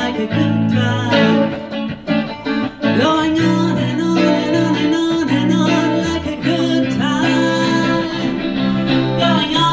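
Live music: a guitar played with a woman singing over it into a microphone, sustained notes and sliding vocal lines.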